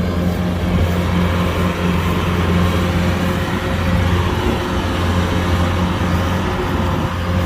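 Kubota DC-105X combine harvester running steadily: a low engine drone with a fainter steady higher hum over it.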